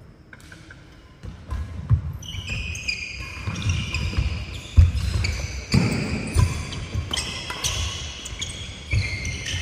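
Badminton doubles rally on a wooden indoor court, starting about a second in: sharp racket strikes on the shuttlecock, heavy footfalls as players lunge and push off, and frequent squeaks of court shoes on the floor. The loudest thump comes near the middle.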